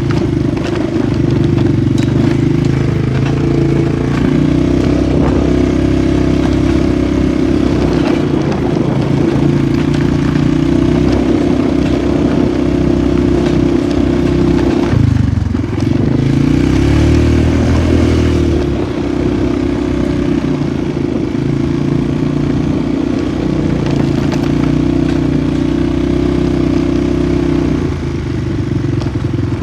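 Polaris 450 ATV engine running while riding, a steady loud drone. About halfway through the engine note drops for a few seconds under a rising hiss, then the steady drone picks back up.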